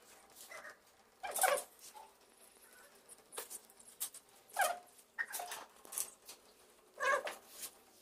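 A screw squeaking as a hand screwdriver tightens it through a uPVC door handle into the frame, in about six short, irregular squeals, one for each twist.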